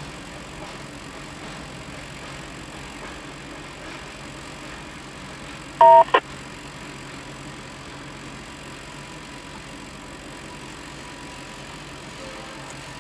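Freight cars rolling past at a grade crossing: a steady noise of steel wheels on the rails, heard through a car's windshield. About six seconds in, a short, very loud pitched beep cuts across it once, with a brief second blip right after.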